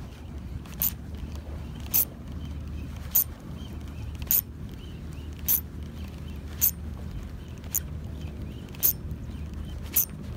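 Spinning reel being cranked in a slow retrieve, giving a sharp tick about once a second, over a steady low rumble of wind.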